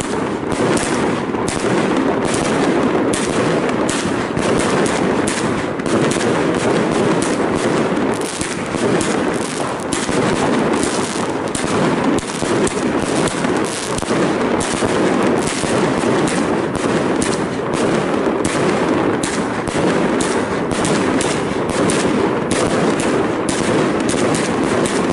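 A 120-shot, 30 mm fireworks cake firing in a rapid, unbroken string of shots, with launch reports and bursts overlapping.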